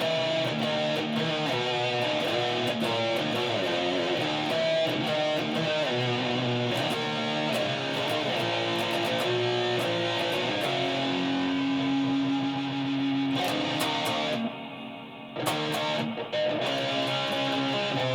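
Guitar playing a continuous run of rock and metal riffs, with a brief drop in level about fourteen and a half seconds in before the playing picks up again.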